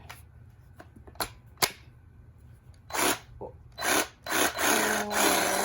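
Cordless reciprocating saw, no blade fitted, run in short trigger pulls: a few clicks, then from about three seconds in several brief bursts of the motor, the last one held for about a second.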